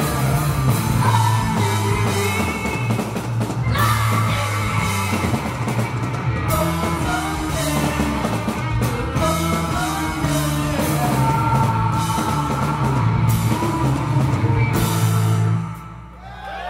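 A live rock band plays the last bars of a song, with a singer over electric guitars, bass, drum kit and keyboard. The band stops abruptly about a second before the end.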